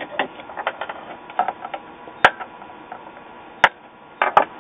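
Irregular light clicks and taps of tools and small parts being handled on a workbench, with a sharp click about two seconds in, another a little over three and a half seconds in, and a quick pair near the end.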